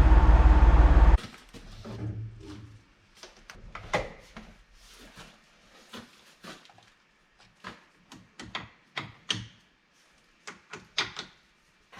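Tractor engine running loudly, cutting off suddenly about a second in. After that, scattered sharp clicks and knocks.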